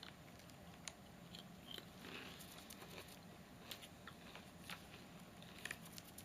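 Faint chewing of potato chips, with a few soft scattered crunches.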